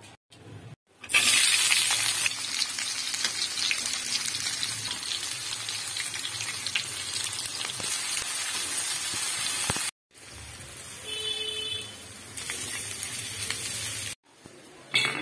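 Sliced onions, green chillies and garlic sizzling in hot oil in a kadhai, the hiss starting suddenly and loud about a second in. After a cut near ten seconds the frying goes on more quietly while they are stirred.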